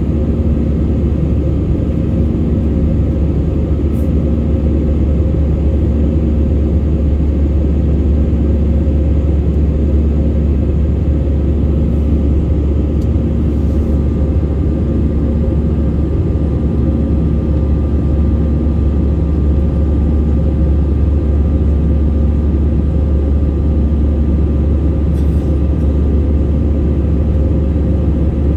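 Steady, loud cabin noise of an Airbus A320-family jet airliner climbing after take-off: a low rumble of engines and airflow with a faint hum running through it.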